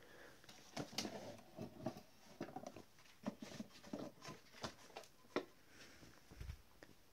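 Quiet, irregular wooden clicks and knocks with some rustling as the lid and trays of a wooden cantilever sewing box are handled.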